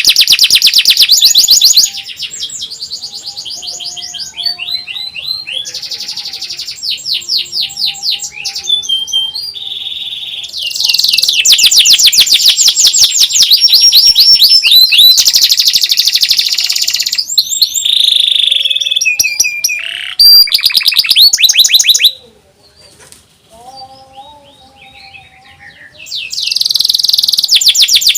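Domestic canary singing long, fast trills of rapidly repeated high notes, broken by brief changes of phrase, with a quieter lull about two-thirds of the way through before the loud trilling resumes.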